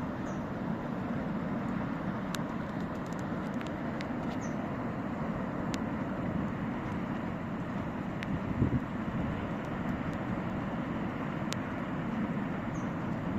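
Mountain stream in flash flood, rushing with a steady low rumble, with a few sharp clicks and a brief low thump about two-thirds of the way through.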